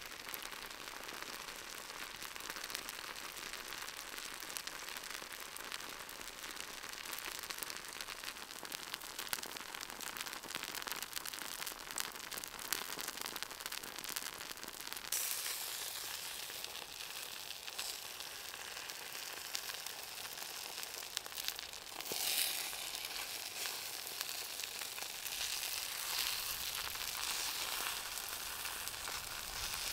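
Food sizzling in a frying pan: a dense, steady sizzle with fine crackling that gets louder and hissier about halfway through.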